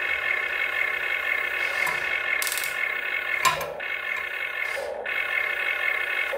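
Electric motors and gearing of a Huina 1592 RC toy excavator whining steadily as the boom, arm and bucket move, with a sharp click about three and a half seconds in.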